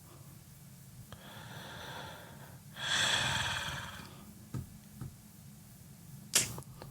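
A man breathing audibly close to the microphone: a softer breath, then a louder, longer breath about three seconds in, followed by a few small clicks and a sharper tap near the end.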